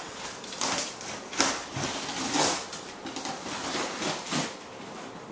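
A large cardboard shipping box being handled and opened: irregular rustling and scraping of cardboard, with a sharp knock about a second and a half in.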